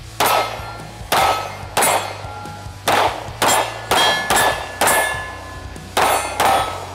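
Springfield Armory Echelon 9mm pistol fired ten times: three spaced shots, a quicker string of five, then a fast pair. Each shot leaves a short metallic ring.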